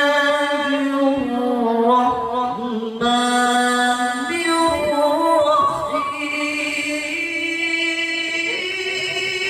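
A male qari reciting the Quran in melodic tilawah style into a handheld microphone: long held, ornamented notes in a high register, a short breath about three seconds in, then climbing step by step to higher pitches.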